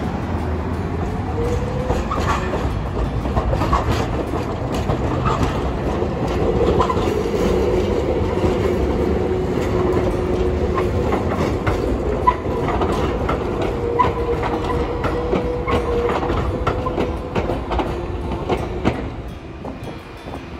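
Hiroden 3950-series 'Green Liner' articulated tram passing close, with wheels clicking over the rail joints and a steady low whine and rumble. It grows louder as the tram goes by in the middle and fades near the end.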